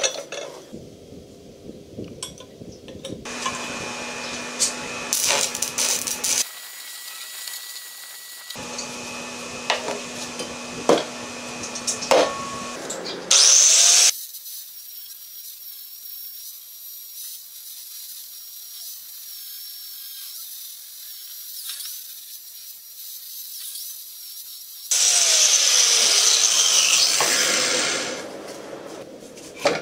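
A drill bores through a steel plate: its motor runs in two spells, with sharp bites as the bit cuts. Then an angle grinder with a flap disc whines at speed and grinds the weld beads on the steel plate loudly for about three seconds near the end.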